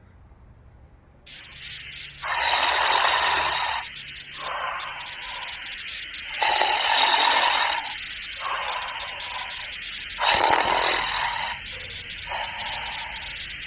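A person snoring loudly: three long, loud snores about four seconds apart, each followed by a softer breath.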